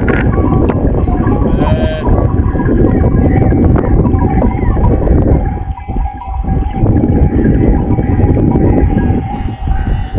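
A flock of sheep and goats with a bell clanking and a bleat about two seconds in, over a loud, steady low rumble.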